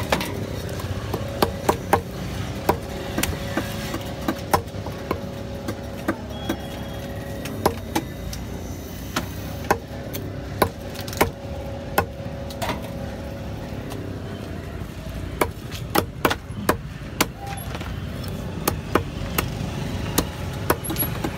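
Heavy fish-cutting knife chopping small trevally on a wooden block: sharp, irregular chops, often several in quick succession and then a short pause, over a steady low background din.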